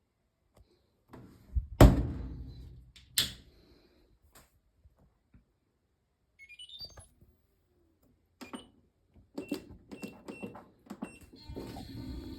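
Fisher & Paykel MW059NZ washing machine being set going: two heavy thuds, then a short rising run of electronic beeps, then five or six single button-press beeps with clicks. Near the end the machine starts its cycle with a steady rushing sound.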